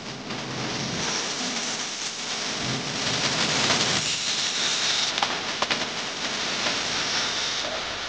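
Electric angle grinder with a cutoff wheel cutting through the steel wall of a helium tank: a loud, steady grinding hiss, with a higher whine standing out through the middle stretch.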